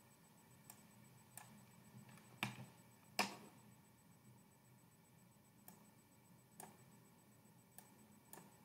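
Near silence broken by scattered faint clicks from a computer mouse being used, with two louder clicks about two and a half and three seconds in.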